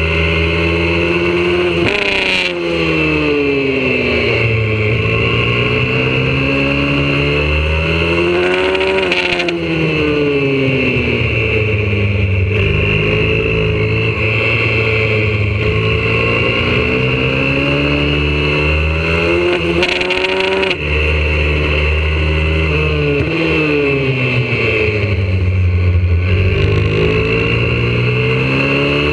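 YCF 125cc four-stroke single-cylinder pit bike engine at full race pace, heard from on board. The revs drop sharply three times, about 2, 9 and 21 seconds in, as the bike slows for corners, then climb steadily back up on the straights.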